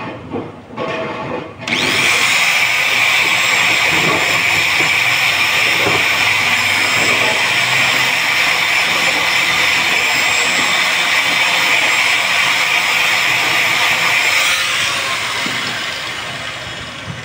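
Electric angle grinder buffing a rubber inner tube around the puncture, roughening it for a hot-vulcanised patch. It starts about two seconds in, runs steadily, and winds down over the last few seconds.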